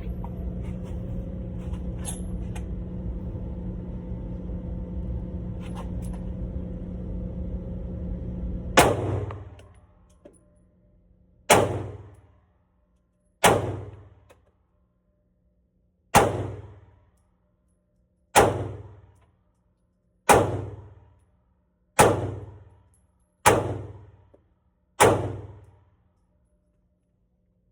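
A steady low hum for about nine seconds, then a Sig Sauer P365XL 9mm pistol fired nine single shots, each a sharp crack with a short ringing tail, about two seconds apart.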